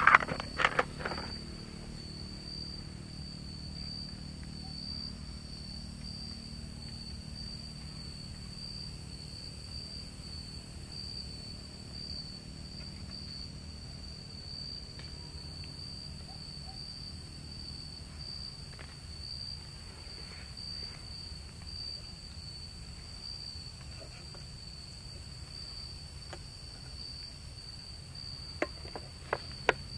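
Insects trilling steadily on one high note, with a few clinks of a spoon against the metal camping pots at the start and again near the end.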